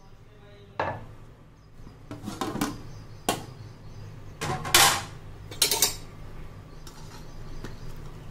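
Aluminium cooking pot and its metal lid clanking as the lid is taken off: a handful of sharp metallic knocks, the loudest about halfway through, over a steady low hum.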